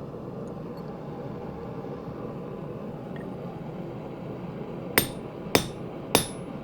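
Three ringing hammer blows on a steel punch, about half a second apart, starting about five seconds in. A steady low rushing noise runs underneath.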